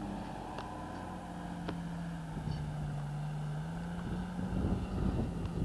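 Engine of a Toyota 4x4 running as it drives across sand dunes: a steady hum whose pitch dips a little about two seconds in and rises again near four seconds. Low wind rumble on the microphone grows near the end.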